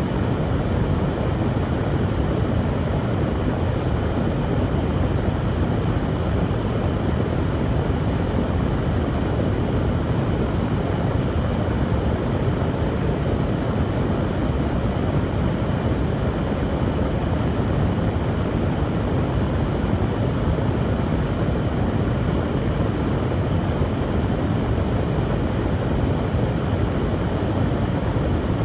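Hand-held hair dryer running steadily, a constant blowing rush of air and motor noise, strongest in the low range, that stays the same throughout.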